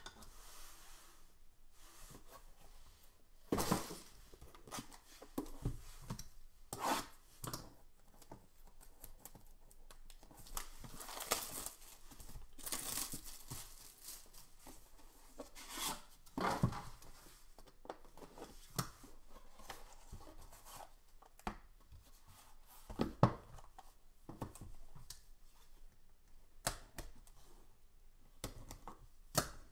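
Hands tearing and crinkling packaging while opening a sealed box of trading cards, in scattered rustles, with a few sharper knocks of cardboard boxes being handled and set down.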